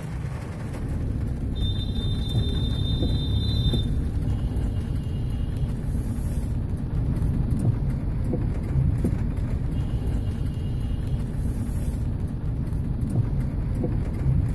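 Steady low rumble of storm wind and street traffic, with thin high steady tones lasting a second or two, about two, four and ten seconds in.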